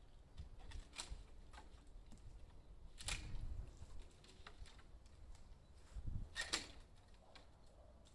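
Faint, sharp clicks and snaps of long-handled loppers cutting cherry branches, a few separate cuts, the loudest about three seconds in and again about six seconds in, over a low rumble.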